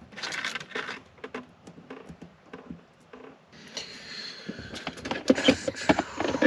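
Hands at work fitting an electrical switch: rustling, with scattered clicks and knocks. From about halfway through, the rustling thickens and the clicks and knocks come quickly, loudest near the end.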